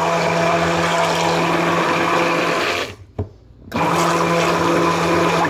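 Handheld stick blender running steadily, with a hum that holds one pitch. It cuts out for just under a second about three seconds in, then starts again, as it mixes dye into a small batch of thickened soap batter at trace.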